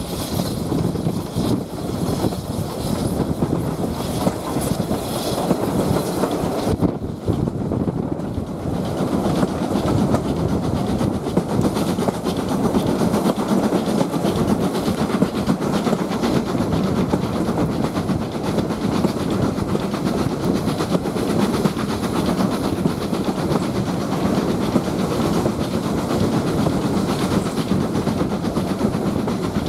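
Passenger coach of a steam-hauled train running along the line, heard from an open carriage window: a steady, continuous rumble of wheels on the rails with a hiss of passing air above it.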